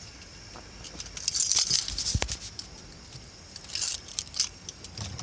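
Metallic jingling in two short spells, like a bunch of keys shaken, with a single sharp click between them.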